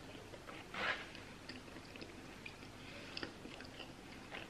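Faint close-mouthed chewing of a soft pulled pork burger, with small wet mouth clicks throughout. A short, louder burst of noise comes about a second in.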